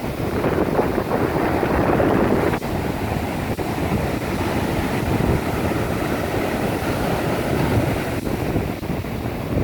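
Ocean surf washing onto a beach, a wave swelling loudest in the first couple of seconds, with wind buffeting the microphone.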